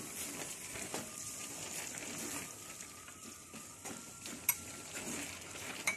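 A wooden spatula stirring and scraping thick tomato and masala paste in a clay pot over a steady frying sizzle, with a sharp tap against the pot about four and a half seconds in.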